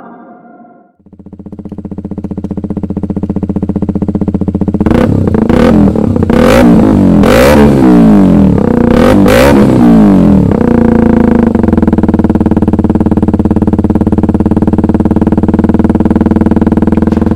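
KTM 125 Duke's single-cylinder four-stroke engine running through a Lextek CP1 stubby aftermarket silencer: it idles steadily, is revved in several quick blips that rise and fall between about five and ten seconds in, then settles back to a steady idle.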